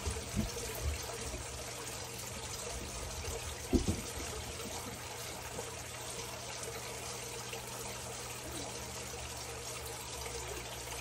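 Wire whisk stirring a thickening roux-based sauce in a stainless saucepan, a steady liquid swishing, with one short knock about four seconds in.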